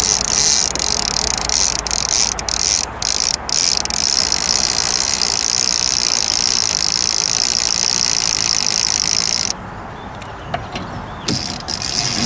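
Casting reel's clicker ratcheting in a steady, rapid buzz as line pays out for a suspended bait. It cuts off suddenly about nine and a half seconds in and starts again near the end.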